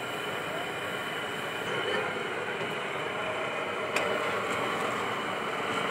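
Steady hiss and rumble of a hot flat griddle with sponge dosas cooking on it, with one sharp click about four seconds in.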